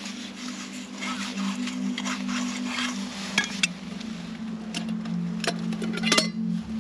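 Rustling of gear and clothing with a few sharp clicks and clinks, the loudest a quick pair in the middle and one near the end. Soft background music with low held notes runs underneath.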